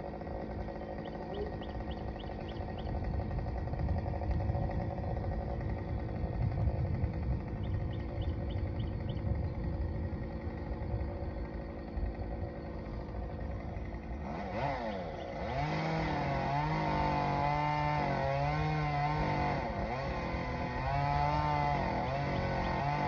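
Chainsaw engine running, its pitch rising and falling unsteadily as the throttle is worked, coming in clearly about fifteen seconds in. Before that, a low steady rumbling noise.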